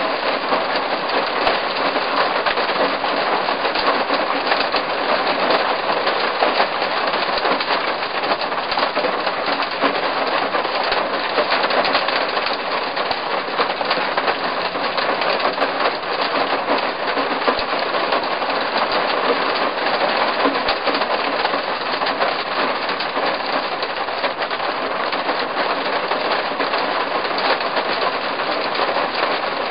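Loud, steady patter of rain on a Land Rover Defender 90's roof, heard from inside the cab, mixed with the rumble of the vehicle.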